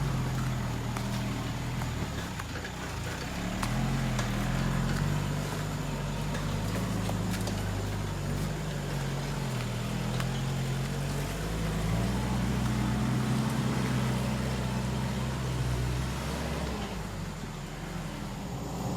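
Truck engine running under load, its pitch rising and falling several times as it is revved and eased off.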